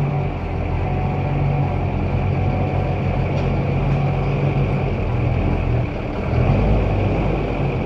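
GMC Sierra pickup's engine running at a low, steady idle as the truck creeps slowly forward into the garage.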